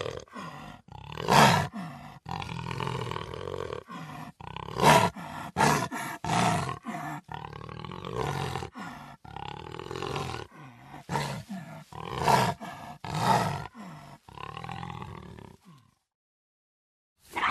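Cheetah vocalizing: a run of rough, pitched calls with short pauses between them and several louder outbursts. The calls cut off suddenly shortly before the end.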